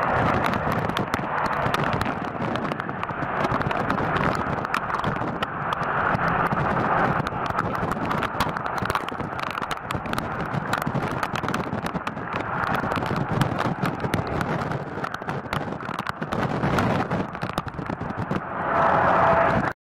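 Torrential thunderstorm downpour with strong wind gusts: a dense rush of heavy rain full of sharp clicks of drops striking close by, over wind rumbling on the microphone. It swells near the end and then cuts off abruptly.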